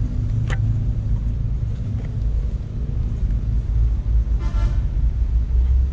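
Steady low engine rumble, with a short higher-pitched sound about four and a half seconds in.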